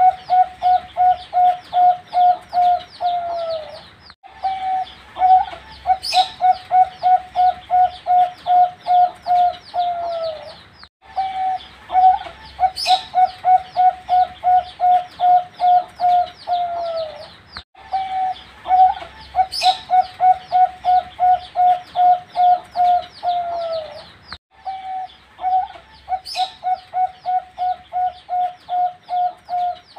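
A four-month-old zebra dove (perkutut) cooing: phrases of quick, even notes, about five a second, each ending in a falling note, repeated about every six to seven seconds. A sharp click falls once in each cycle.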